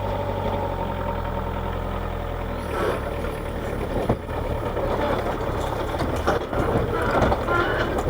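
Kubota KH-90 mini excavator's diesel engine running steadily. About three seconds in, the sound turns rougher and noisier, with scattered knocks, as the machine's hydraulics are worked and it starts to move.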